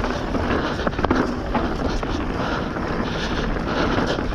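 Wind rushing over the microphone as a Bird Zero AM hardtail mountain bike runs fast down a dry, dusty dirt trail, with tyre roar and the rattle and sharp knocks of the bike over rough ground.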